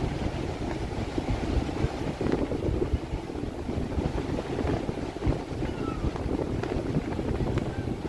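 Strong, gusty wind buffeting the microphone, with the wash of breaking surf beneath it.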